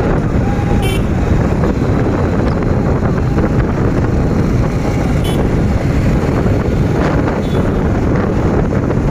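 Steady wind buffeting the microphone and road and engine noise from riding a motorcycle through traffic. Two brief sharp high-pitched sounds come through, about one second in and again about five seconds in.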